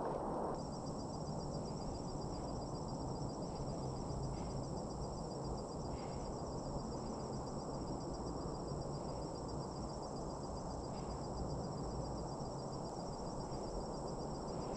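Insects trilling, a fast, even, high-pitched pulse that starts about half a second in and holds steady, over a low, steady rumble of outdoor noise.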